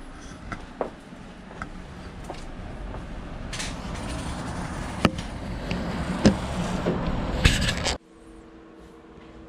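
Hotel room ambience: a steady hiss that slowly grows louder, broken by a few sharp clicks and knocks. About eight seconds in it cuts abruptly to a quieter room tone with a low steady hum.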